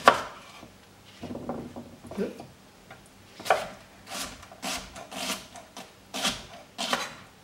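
Chef's knife slicing through an onion and knocking on a wooden chopping board: one sharp knock at the very start, a few softer cuts, then a slow, even run of knife strokes about every half second in the second half.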